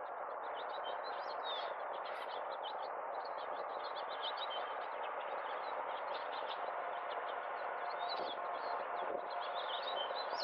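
Small songbirds chirping rapidly and repeatedly over a steady rushing background noise.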